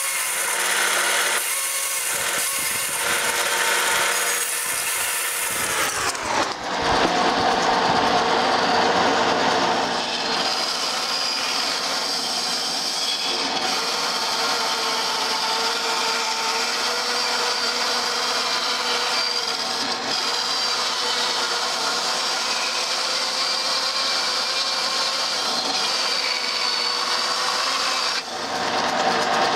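Bandsaw ripping a small log into boards against a fence, the motor and blade running steadily as the wood is fed through. The sound changes abruptly about six seconds in and dips briefly near the end.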